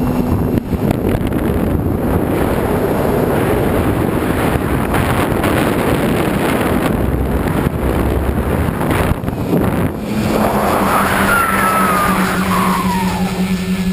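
Pro Tricopter's three NX-4008 brushless motors and propellers heard from its onboard camera during a fast climb: a loud rush of wind and prop noise over the microphone. About ten seconds in it gives way to a steady motor hum.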